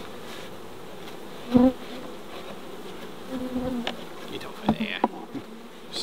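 Honeybees buzzing around an opened hive: a steady hum, with single bees droning loudly past close by about a second and a half in and again around three and a half seconds. A few light knocks near the end.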